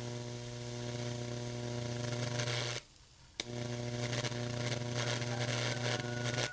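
Metal electrode in a bucket of water acting as a resistive load on household mains, giving a steady electrical buzz with a sizzling hiss as current passes through the water. The buzz cuts off abruptly a little under three seconds in and comes back about half a second later.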